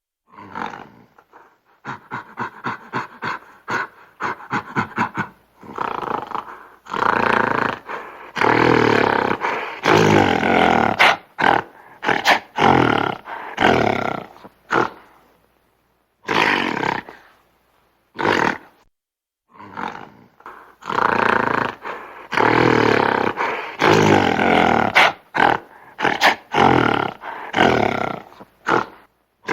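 Gorilla growling and roaring: a quick run of short grunts, then long, loud roars in two bouts separated by shorter calls and pauses.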